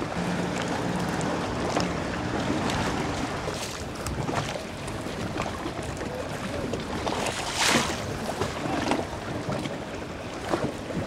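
Wind buffeting the microphone over choppy water, with waves slapping and splashing. A low steady hum sounds for the first few seconds, and a sharper rush of noise comes about eight seconds in.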